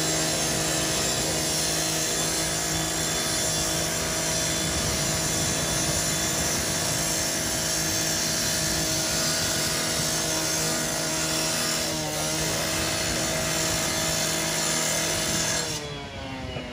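Handheld power cutter running steadily as it cuts into the sheet-metal side of a garbage truck's body, throwing sparks. It stops abruptly near the end.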